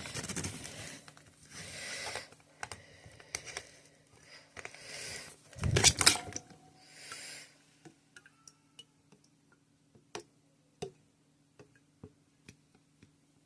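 Hands unscrewing the plastic lid of a Magic Mixies Pixlings toy and pulling its inner cylinder out: plastic rubbing and scraping for several seconds, loudest about six seconds in, then scattered light plastic clicks and taps.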